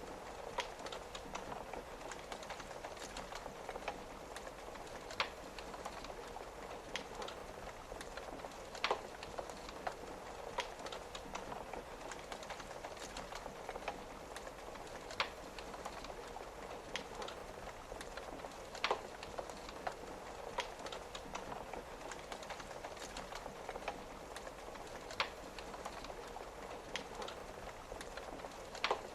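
Wood fire crackling, with sharp pops every second or two, over a steady hiss of rain pattering on a window.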